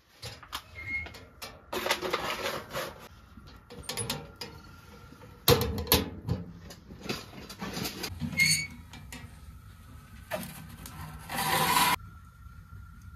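Handling noises at a small sheet-metal wood stove: clicks, knocks and scraping as its door handle and door are worked, together with an aluminium foil tray being handled. The sounds come as separate short clatters and rustles, the loudest a sharp knock about halfway through, with a dense rustle near the end that cuts off abruptly.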